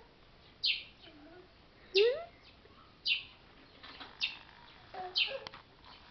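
Small child's short babbling vocal sounds, one rising in pitch about two seconds in. Short, high, falling chirps repeat about once a second and are the loudest sounds.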